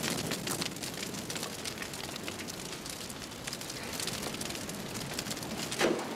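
Fire crackling with many small irregular snaps over a steady hiss: flames on glowing red-hot stones carried in a wooden bucket.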